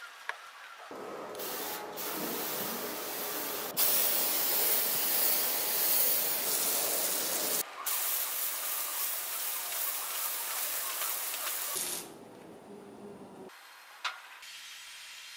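Hand-pump pressure sprayer spraying a fine mist from its nozzle: a steady hiss that gets louder about four seconds in, breaks off for an instant about halfway, and stops about three-quarters of the way through. A single click near the end.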